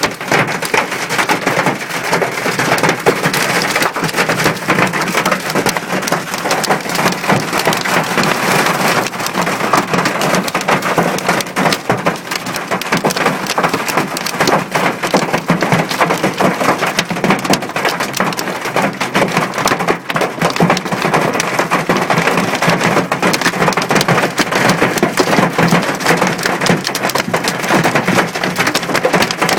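Hailstones striking a car's roof and body, heard from inside the car: a dense, unbroken clatter of countless small impacts that keeps on at a steady strength.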